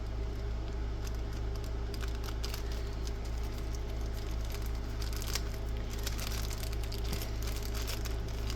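Packaging being handled and torn open: irregular crinkling and rustling with short tearing sounds, over a steady low electrical hum.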